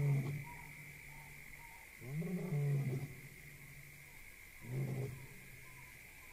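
Lion roaring: a series of deep, moaning calls about two and a half seconds apart, each shorter than the last, over a steady high-pitched drone.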